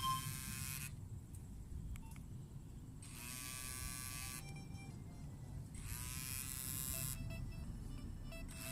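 Mobile phone vibration alert buzzing in pulses of about a second and a half, repeating roughly every three seconds, each pulse rising in pitch as the motor spins up. Faint short beeps begin near the end.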